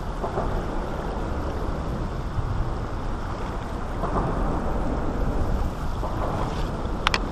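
Shallow river water rushing and splashing around a wader's legs as he crosses a rocky channel, a steady noise with a low rumble. A few sharp clicks come right at the end.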